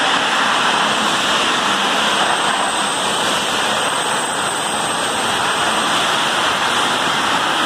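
Pulling tractor's diesel engine at full throttle under heavy load while dragging a weight-transfer sled: a loud, steady, dense noise with a thin high whine held over it.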